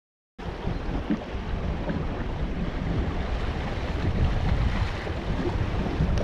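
Wind buffeting the microphone over the rush and splash of water along the hull of a sailing dinghy under way, starting abruptly about half a second in.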